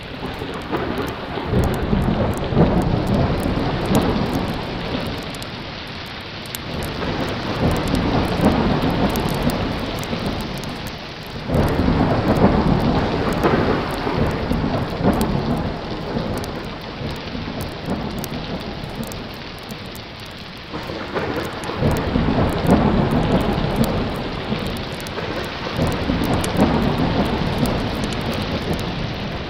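Thunderstorm: steady heavy rain with rolling thunder that swells and fades about five times, one roll starting suddenly about a third of the way in.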